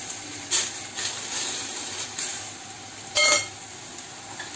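Metal tongs stirring and scraping garlic-fried greens in a stainless steel pan over a faint sizzle, with a few short clicks, then a brief ringing clink about three seconds in as metal strikes the pan or a bowl.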